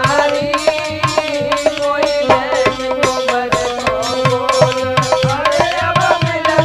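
Instrumental interlude of Indian folk music. A hand drum plays a quick, steady rhythm, its low strokes sliding down in pitch, under a melody instrument.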